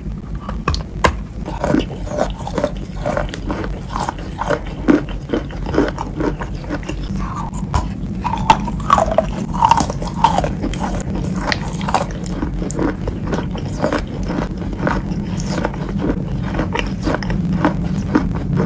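Close-up biting and chewing of wet chalk in a clay paste: a dense run of short, sharp crunches, some louder than others, over a steady low hum.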